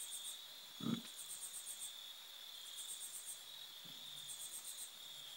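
Crickets chirping in repeated short trills over a steady high tone, with a brief low thump about a second in.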